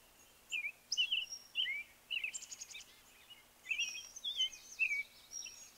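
Small birds singing: a string of short chirps and whistled notes that slide up and down in pitch, with a quick trill about two and a half seconds in.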